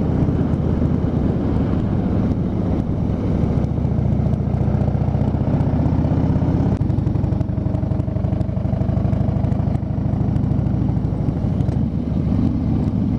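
Harley-Davidson V-twin motorcycle engine running steadily under way, at an even pitch throughout.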